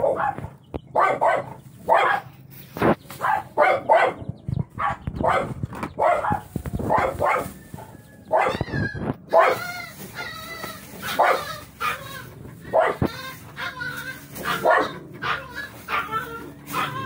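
A dog barking over and over, about one to two barks a second, with a few higher yelping calls in the middle.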